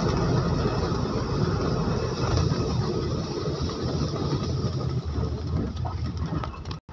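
Steady low rumble of a moving road vehicle's engine and tyres, heard from on board. It cuts out for a moment near the end.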